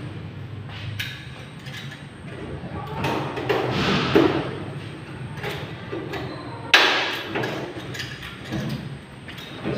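Scattered knocks and clanks of metal workpieces, lengths of angle bar and sheet metal, being handled and set down on a concrete floor. The loudest is one sharp clank with a short ring about two-thirds of the way through.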